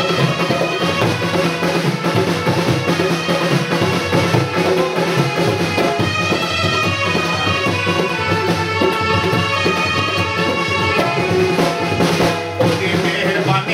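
Instrumental break in a folk song: tabla drumming under a melody played on an electronic keyboard.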